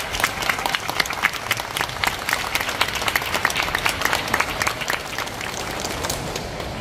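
An audience applauding, many hands clapping at once, easing off a little near the end.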